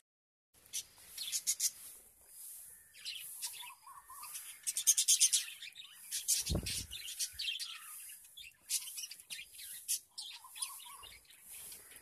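A flock of budgerigars chirping and chattering in quick, irregular bursts while they feed. A single low thump comes about halfway through.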